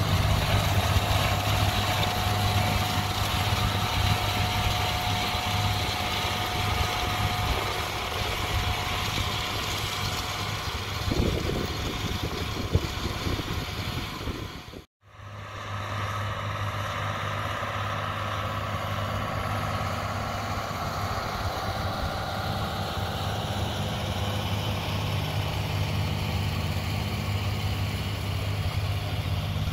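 Agco Allis 9785 tractor running steadily as it pulls a 16-row corn planter, with a thin steady whine over the engine for the first several seconds. The sound cuts out for a moment about halfway through, then the same steady running resumes.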